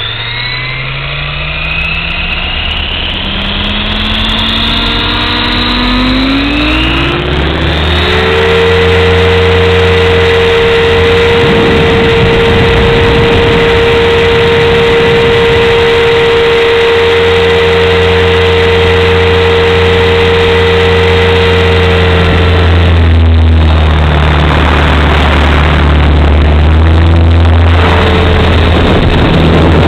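Align T-Rex 550 electric RC helicopter, heard from the camera on board. Its brushless motor and rotor spool up with a rising whine over the first several seconds, then run at a steady pitch in flight. The tone wavers briefly about three quarters of the way through, then steadies again.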